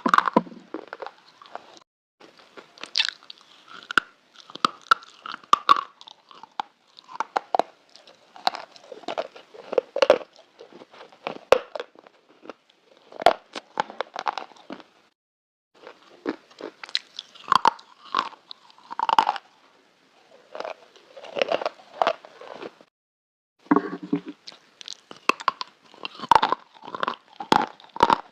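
Black slate being bitten and chewed up close: dense crisp crunching in bursts, broken by a few short pauses.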